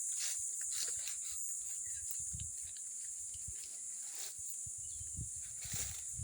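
A steady, high-pitched chorus of crickets, a continuous shrill drone made by the insects rubbing their wings together. Low thumps and rustles come and go underneath.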